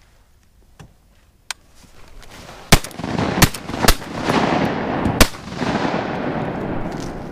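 Four shotgun blasts in quick succession, the first three within about a second of each other and the fourth more than a second later, fired at mallards at close range. A rushing noise builds beneath them from about two seconds in and fades near the end.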